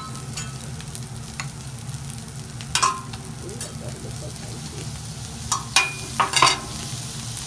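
Fried rice sizzling on a hibachi steel griddle while a metal spatula and fork scrape and clack on the steel, with a sharp clack about three seconds in and a quick cluster of clacks near the end.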